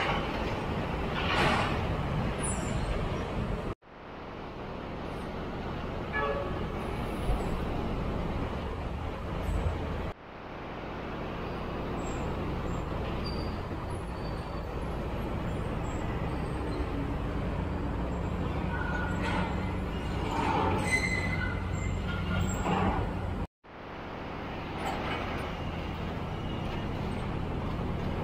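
Heavy road traffic of container trucks and motorbikes passing under an elevated toll road, a steady low rumble of engines and tyres. A few short high-pitched tones sound about two-thirds of the way through. The sound cuts out abruptly three times and fades back in at each edit.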